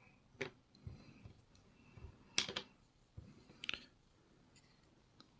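Sharp metallic clicks and taps from a Lockwood MT5 lock being worked with tools, about six in the first four seconds, the loudest about two and a half seconds in, while the stuck plug that won't turn back is being tried.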